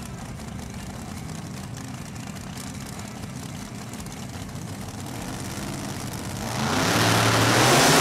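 Two Top Dragster race cars running at the starting line with a steady rumble. About six and a half seconds in they launch at full throttle, and the engines get suddenly loud and rise in pitch as the cars accelerate away.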